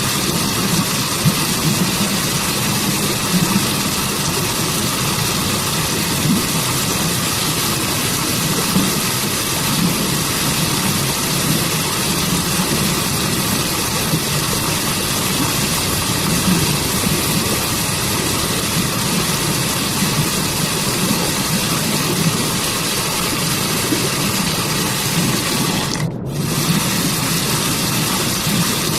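Waterfall and forest stream rushing in a steady, continuous wash of water noise. The hiss cuts out for an instant near the end.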